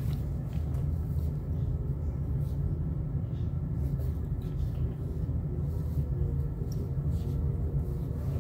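Domestic cat purring steadily, a low rumble close to the microphone.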